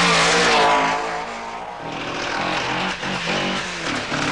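Rally car engines at high revs on a tarmac stage: one car passes close, its note falling as it goes by, then another car's engine is heard rising and falling more faintly.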